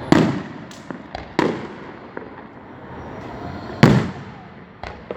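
Aerial fireworks shells bursting: a string of sharp booms, about three big ones and several smaller pops, each trailing off with an echoing rumble, the loudest just before 4 seconds in.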